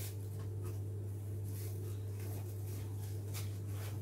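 Light knocks, clicks and rustling of things being moved about in a low kitchen cabinet, coming several times, over a steady low hum.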